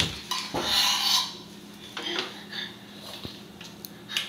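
Irregular clinks and short scrapes of a spoon against a cup or dish, a handful of separate small knocks spread over a few seconds.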